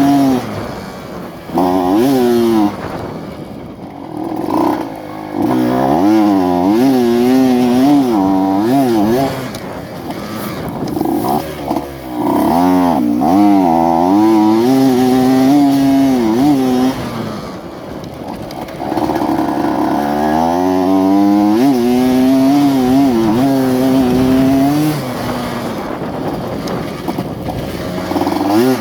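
Two-stroke Yamaha F1ZR single-cylinder engine in a modified underbone motorcycle, revved again and again: the pitch swings up and down in quick waves and drops back to a lower, quieter note several times.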